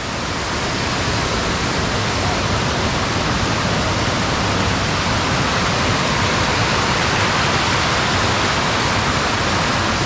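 Small stream cascade (a micro waterfall) rushing steadily over a low rock ledge into a pool, heard close up.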